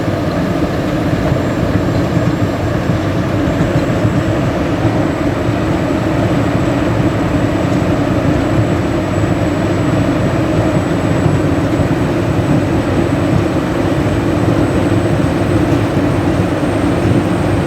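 Diesel engine of an Atlas Copco Powercrusher PC1375I tracked impact crusher, a Caterpillar unit, running steadily at a constant, loud level, with a faint high whine.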